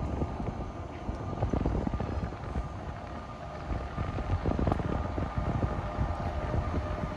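A passing train's low rumble with a steady high whine over it, and wind gusting on the microphone.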